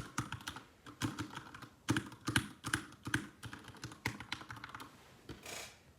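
Keys of a mechanical keyboard with freshly lubed switches being typed on in an irregular run of presses, several a second with short pauses, and a brief soft hiss near the end.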